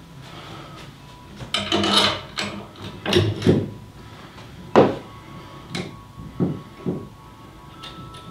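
Folding steel-and-wood canoe-rack bracket being worked by hand: a scraping rub about two seconds in, then a series of knocks and clunks, the sharpest about halfway through.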